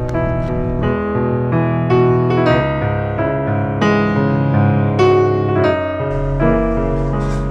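Instrumental background music: a steady run of pitched notes over a low bass line.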